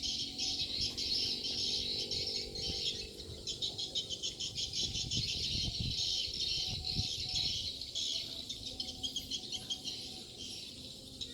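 Edible-nest swiftlets twittering: a dense, fast chatter of high chirps that carries on without a break.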